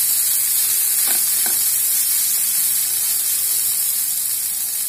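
Chopped vegetables sizzling in a hot nonstick frying pan as they are stirred with a silicone spatula, being dry-roasted until their moisture cooks off. There is a steady high hiss throughout, with a couple of brief spatula scrapes about a second in.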